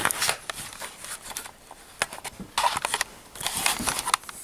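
Handling noise from a handheld camcorder being swung around and held close: irregular rustling with scattered clicks and knocks, heaviest a little past the middle.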